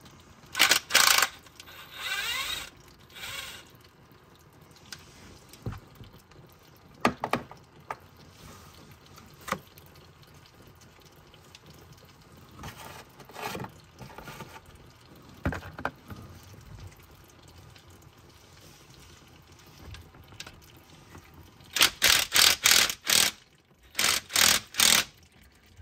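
Cordless impact driver with an 8 mm socket hammering in short bursts as it loosens transmission pan bolts: a burst about a second in, single bursts every few seconds, then a quick run of about seven bursts near the end. Between the bursts, automatic transmission fluid dribbles off the pan's edge into a plastic bin.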